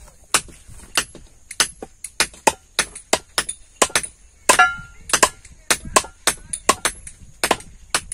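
Hammer blows striking the end of a sledgehammer's handle to drive it tight into the head, about fifteen sharp strikes at a steady pace of roughly two a second. One blow near the middle rings briefly like metal.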